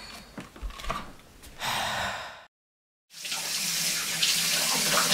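A few soft knocks, then a bathroom sink tap running into the basin. A short burst of water is cut off by half a second of dead silence, and the tap then runs loud and steady.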